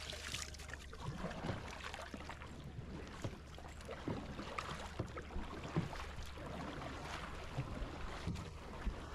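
Kayak paddle strokes through calm water: irregular splashes and drips as the blades dip in and lift out.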